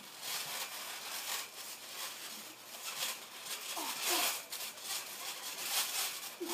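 Irregular scuffing and rustling of feet and bodies moving on a trampoline mat during play-wrestling, with a couple of short grunts or exclamations.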